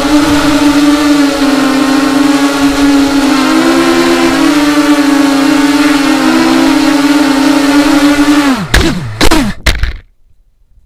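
FPV quadcopter's brushless motors and propellers whining steadily in a hover, the pitch wavering slightly as the throttle shifts. Near the end the pitch falls sharply and a few knocks sound as the quad sets down and the motors spool down.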